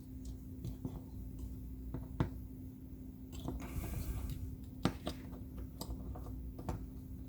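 Hard plastic action-figure parts being handled. Several sharp clicks and taps come a second or so apart as a gun is pressed into a tight-fitting hand, with a brief scraping rustle near the middle, over a faint steady hum.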